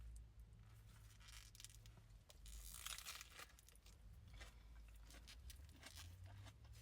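Faint sounds of eating a lettuce-wrapped burger from its paper wrapper: scattered crinkling and crunching, with a louder rustle about three seconds in.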